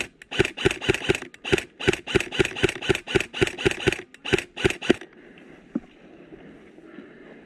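Airsoft electric rifle firing a quick string of single shots, about five or six a second, each a sharp mechanical clack. The shots stop about five seconds in, and one lone click follows.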